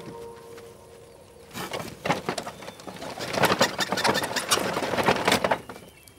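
A dense, irregular run of clicks and rustles that starts about a second and a half in and stops near the end, after the last notes of an organ-like music cue fade out.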